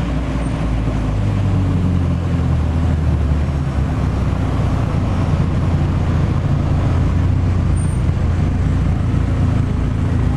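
Car engine and tyre noise from a car driving along at moderate speed, a steady low drone.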